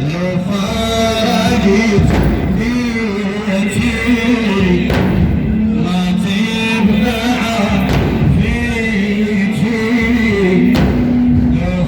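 A male reciter singing a melodic Arabic religious chant, with a wavering, ornamented voice over a deep, regular beat.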